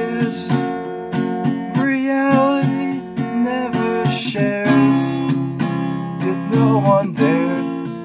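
Steel-string acoustic guitar being strummed, with a man's voice singing along over it.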